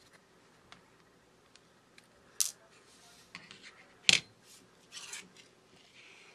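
Plastic clips of a Samsung Galaxy J3's middle frame clicking and snapping as the case is pried apart and lifted off. Two sharp snaps stand out, about two and a half and four seconds in, with lighter clicks and plastic scraping between.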